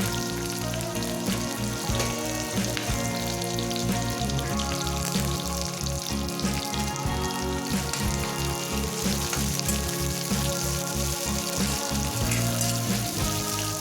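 Food frying in hot oil in a pan, a steady sizzle, under background music with a pulsing bass.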